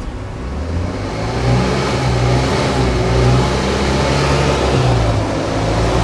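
UAZ Bukhanka van's engine revving under load as the stuck van tries to drive forward out of a mud rut and fails to move. The revs climb about a second and a half in and are held.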